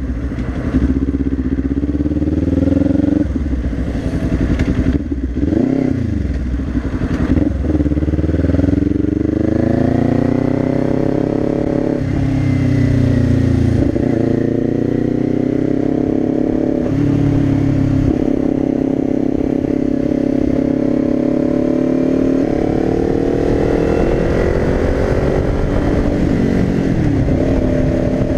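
2022 Kawasaki Ninja 400's parallel-twin engine accelerating through the gears. Its pitch climbs and drops back at each shift, holds steady at cruise for a while, and rises again near the end.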